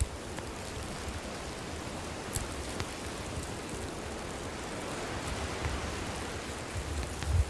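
Wood campfire burning with a steady hiss and a few sharp crackles, with a low rumble near the end.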